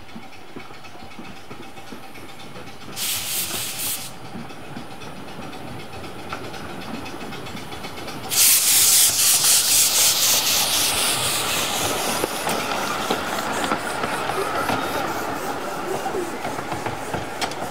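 Exmoor-built 12¼-inch gauge miniature steam locomotive working towards and past, with its train running on the rails. A short hiss of steam comes about three seconds in, then a loud burst of steam hiss about eight seconds in, pulsing with the engine's beats and fading as it passes.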